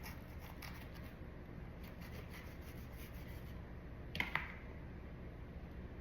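Faint rubbing and small clicks of a knife cutting open a chili pepper, with a sharper double click about four seconds in.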